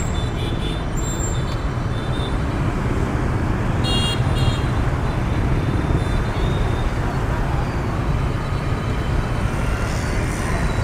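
Dense rush-hour traffic of many motorbikes and scooters with a few cars moving through an intersection: a steady rumble of small engines and tyres. A short, high-pitched horn toot sounds about four seconds in.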